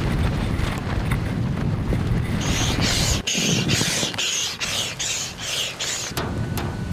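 Strong gusty wind buffeting the microphone with a heavy low rumble. Midway comes a run of about eight short hissing bursts, roughly two a second.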